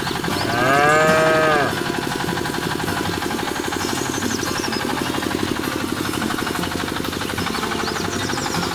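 A miniature DIY water pump's small electric motor buzzing steadily while it sprays water. About half a second in, a single cow moo rises and falls for about a second over it.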